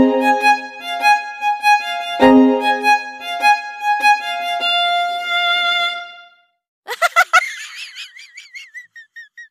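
Music: a violin-like melody of held notes that stops about six seconds in. About a second later comes a rising, wavering sliding tone that fades away.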